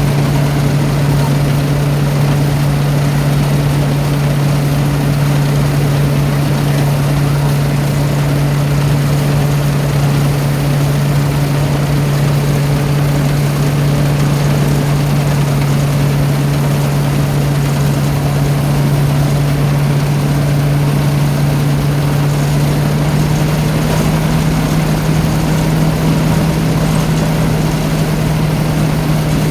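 Rice-threshing machine running steadily under load, its engine giving a strong hum over the clatter and rush of the threshing drum, and the pitch rising slightly about three quarters of the way through. The uploader says the machine sounds as if it is about to break down, yet it keeps going.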